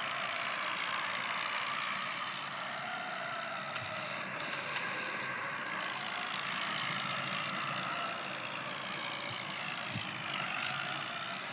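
Vehicle engine running steadily, heard as a continuous even noise without sudden events.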